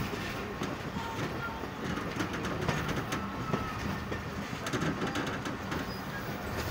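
Passenger train running on the rails, heard from an open window of the moving coach: a steady rumble of wheels on track with scattered clicks.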